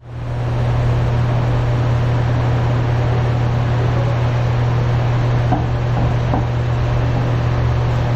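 Steady low machine hum, unbroken, with a noisy rush above it.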